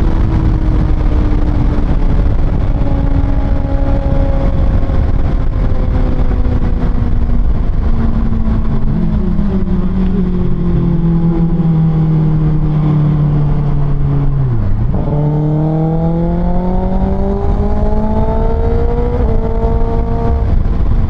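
Kawasaki Ninja ZX-6R's 636cc inline-four through an Austin Racing exhaust, heard from the rider's seat. Its note falls slowly for most of the stretch as the bike slows. About 15 s in it dips sharply, then rises as the bike accelerates, with a short step near the end, over steady wind and road noise.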